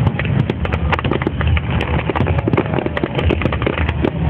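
Fireworks: aerial shells bursting in quick succession, a dense, irregular run of sharp pops and bangs over a steady low rumble.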